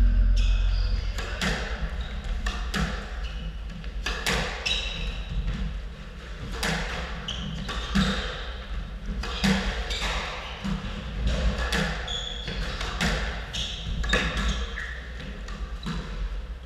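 Squash rally: the ball smacking off rackets and the walls about every one to one and a half seconds, echoing in the court, with short squeaks of court shoes on the wooden floor between shots.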